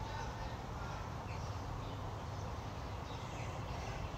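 Steady outdoor background noise with faint bird chirps a few times.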